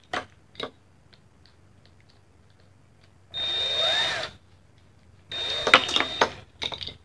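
A few small clicks, then a cordless drill run twice in short bursts of about a second each, its motor whining as it spins up and winds down, backing out the core screws of a speed cube.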